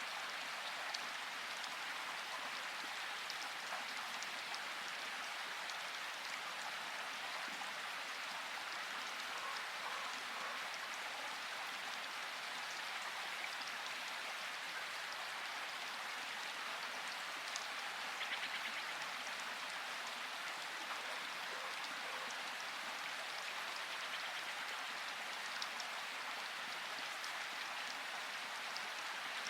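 Steady rain falling in a forest, an even hiss with scattered single drops ticking. There is a short, slightly louder patch of ticking about eighteen seconds in.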